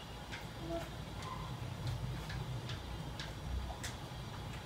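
Quiet room tone: a low steady hum with a few faint, scattered ticks, about one a second.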